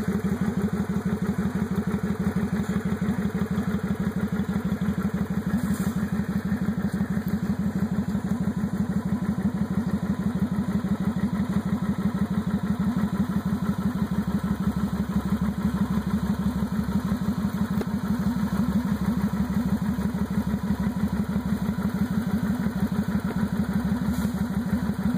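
Cruiser motorcycle engine idling steadily, with an even, rapid low pulse and no revving.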